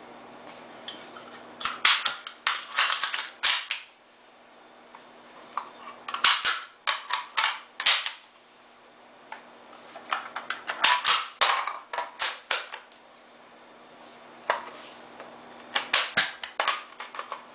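AR-15 magazines being released through a bullet-button lock and seated back into the magazine well: clusters of sharp metal and plastic clicks and clacks, in four or five bursts a few seconds apart.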